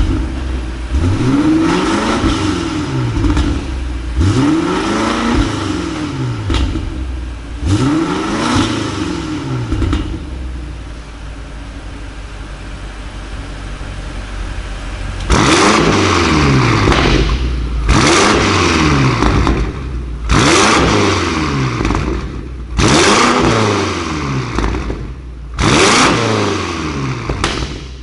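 BMW M5 F90 Competition's twin-turbo 4.4-litre V8 through an IPE exhaust with the particulate filter (OPF) deleted, revved repeatedly: about four rises and falls in pitch, then a few seconds of steadier, quieter running, then five or six short, sharp rev blips near the end.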